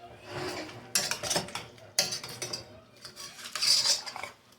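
A utensil stirring and scraping in a pot of cream cheese, butter and milk, with sharp clinks against the pot about one and two seconds in.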